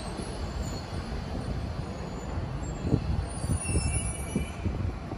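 Tobu 70000-series electric commuter train at the platform: a steady low rumble and hum, with a few dull knocks in the second half.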